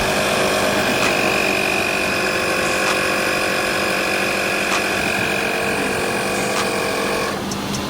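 A steady mechanical hum of a running motor, with a few faint clicks, that cuts off suddenly about seven seconds in.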